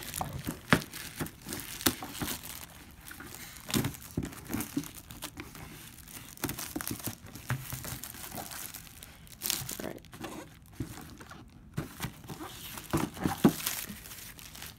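Clear plastic shrink wrap crinkling and tearing as it is pulled off a cardboard box, in irregular rustles and crackles.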